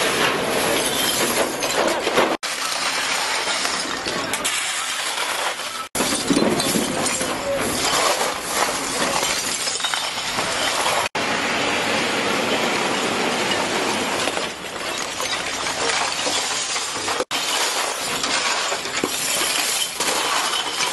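Heaps of spilled glass beer bottles clinking and scraping together as they are shovelled and gathered off the road surface, a continuous glassy rattle broken by a few brief gaps.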